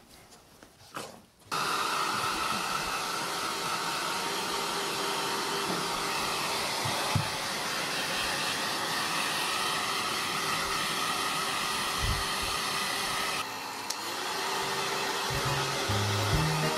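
Hand-held hair dryer switching on abruptly about a second and a half in and then blowing steadily, with a brief dip in its sound near the end, drying a wet dog's fur. Background music with low notes joins near the end.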